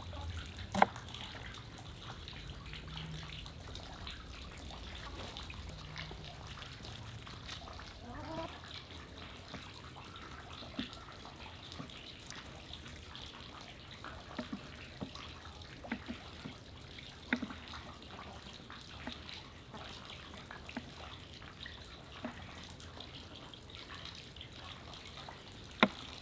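Kitchen knife cutting onion and then raw beef on a bamboo cutting board: scattered sharp taps of the blade striking the board, a few seconds apart, over a steady low background hiss.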